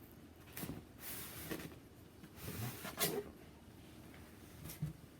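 Handling sneaker packaging: scattered light knocks and clicks with brief rustles, as a shoebox and its contents are moved and opened.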